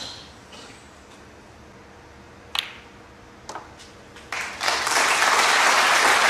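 A few sharp clicks of snooker balls, then audience applause starting about four seconds in, the loudest sound.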